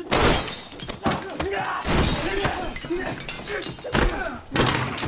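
Film fight sound effects: glass breaking and sharp heavy blows and thuds in close combat. Between the hits come short pained grunts from the fighters.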